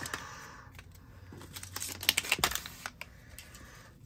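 Rustling and crinkling of a torn-open foil trading-card booster pack as its cards are pulled out and handled, with scattered sharp clicks, the busiest stretch about two seconds in.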